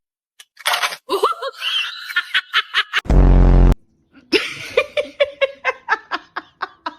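A person laughing in quick, repeated bursts. About three seconds in, a short, loud, low buzzing noise comes first.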